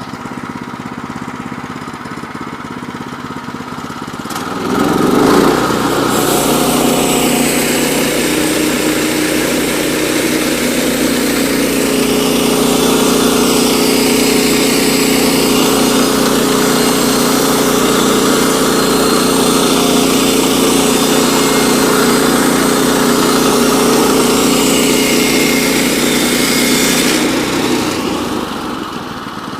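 Woodland Mills HM122 bandsaw sawmill cutting a board from a jack pine log. Its engine runs steadily, then speeds up about five seconds in. A steady hiss of the blade in the wood goes on for about twenty seconds, then stops and the engine drops back near the end.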